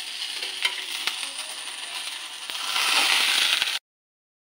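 Vegetables sizzling in hot oil in an aluminium kadai, with a metal spatula clicking against the pan as they are stirred. The sizzle swells about three seconds in, then cuts off abruptly near the end.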